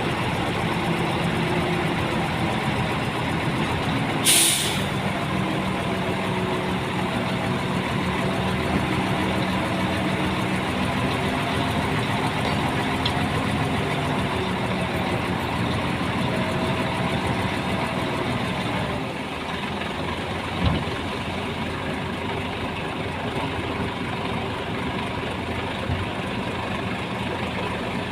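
Heavy diesel engine of earthmoving machinery running steadily, with a short loud hiss about four seconds in. The engine sound drops slightly after about nineteen seconds.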